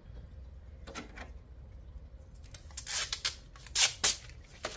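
Protective plastic film being peeled off a plexiglass panel: a few short crackling rips, the loudest ones about three to four seconds in.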